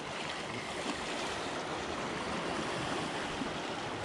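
Sea water washing against shoreline rocks: a steady rush of surf.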